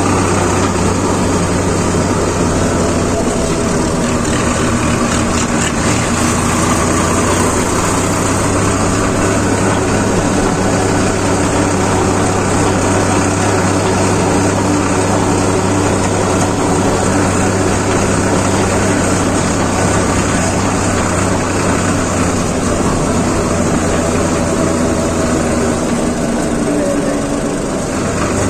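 Sonalika Sikandar tractor's diesel engine running steadily under way, heard close up from the driver's seat.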